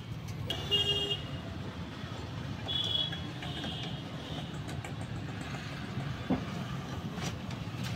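Steady traffic rumble with two short high tones, about a second in and again about three seconds in. Near the end come a few faint clicks of a T-handle socket wrench working the motorcycle's clutch spring bolts.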